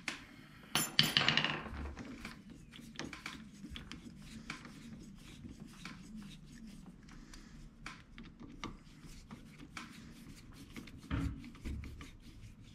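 Small metal clicks and scrapes of a hand impact screwdriver being turned on the clutch cover screws of a 125cc ATV engine, with a louder metallic clatter about a second in and a knock near the end.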